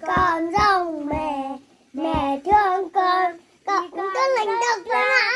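A young child singing a song in Vietnamese, one sung syllable after another with rising and falling pitch.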